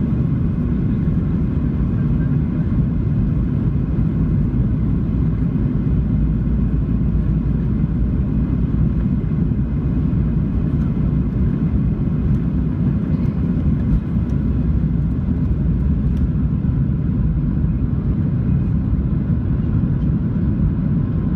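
Steady cabin noise inside a Boeing 737-700 in flight: an even low rumble of the CFM56-7B engines and the airflow over the fuselage, unchanging throughout.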